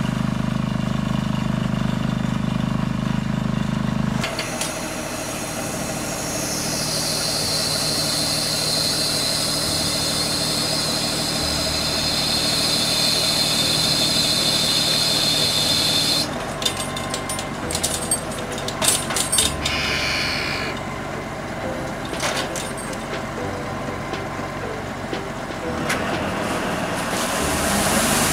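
Tractor engines working field implements. For about the first four seconds a small tractor pulling a potato planter hums steadily. After that a larger tractor runs a rotary puddling harrow in a flooded rice paddy, with a high steady whine until about midway, then a few seconds of irregular knocks and clanks.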